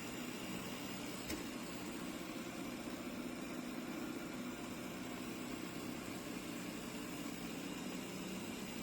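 Shark robot vacuum running steadily, its suction motor and brushes giving a constant hum and hiss, with a single click about a second in.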